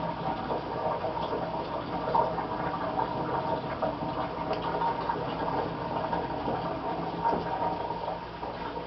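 Heavy rain falling: a dense, steady spatter of many small drops that eases off near the end.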